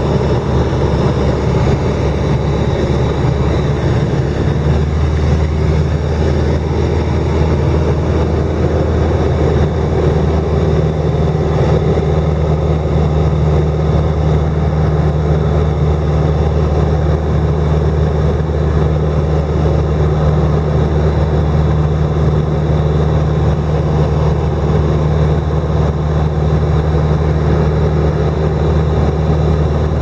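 Light airplane's engine and propeller droning steadily, heard from inside the cabin with a rush of air noise.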